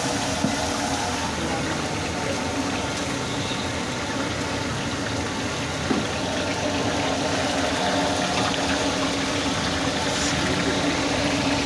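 Vegetables sizzling in a wok over a high gas flame: a steady sizzle and burner noise with a low steady hum underneath, and a single knock about six seconds in.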